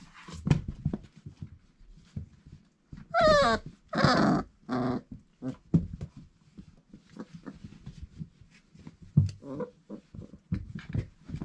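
Four-week-old Irish Setter puppies at play: three short, high puppy barks in quick succession about three seconds in, the first falling in pitch. Between them come light scuffling and clicking of paws on the pen floor and blankets.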